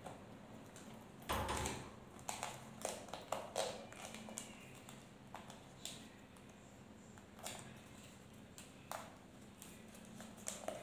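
Faint handling sounds as wires and foam padding are pressed and tucked into an electric scooter's open deck compartment: scattered light taps and rustles, with a louder knock about a second in.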